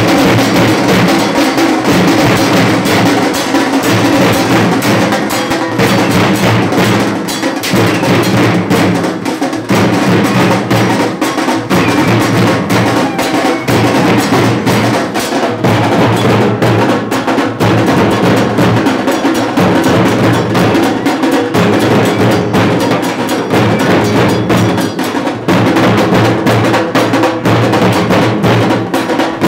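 A procession drum band of large double-headed dhol drums beaten with sticks, together with smaller drums, playing a loud, fast, continuous beat.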